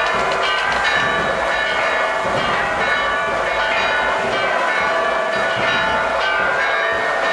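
Church bells ringing continuously, many bells overlapping in a dense, unbroken peal.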